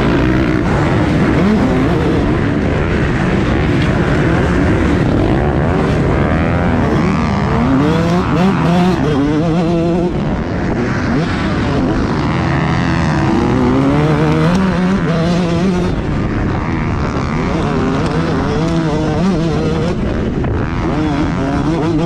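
Motocross dirt bike engine revving hard, its pitch rising and dropping again and again as the rider works the throttle and shifts gears at race pace, heard from on board the bike.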